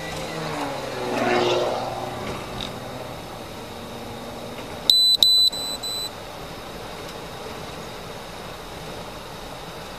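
Engine and road noise inside a moving patrol car, swelling as the car pulls away in the first two seconds. About five seconds in, two sharp, high electronic beeps sound, followed by a quieter held beep of about half a second.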